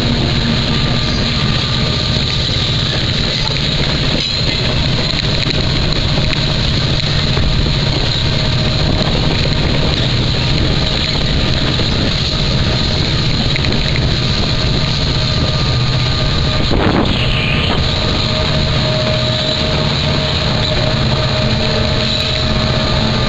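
A CN freight train led by EMD SD60F and SD40-2W diesel locomotives running close alongside, a steady loud noise of diesel engines and rolling train with no let-up.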